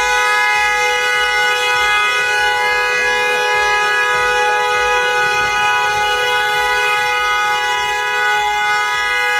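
Car horn held down in one long, steady two-tone blast.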